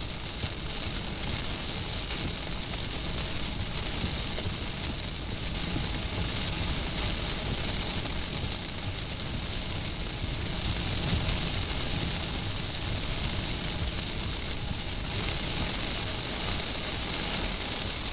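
Heavy rain pelting a car's windshield and roof, heard from inside the moving car: a steady hiss over the low rumble of the car driving.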